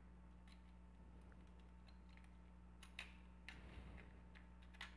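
Near silence broken by a few faint clicks and taps of plastic as the two halves of a PlayStation controller's shell are handled and fitted together, the clearest about three seconds in and just before the end.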